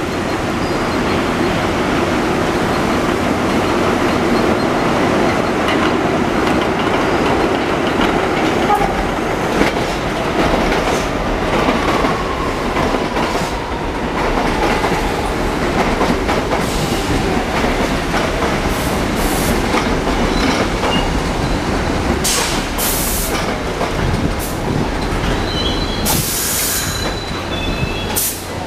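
R62A subway train pulling into an elevated station and braking: a steady rumble with wheels clattering over rail joints, a faint falling whine about halfway through as it slows, and short hisses of air near the end.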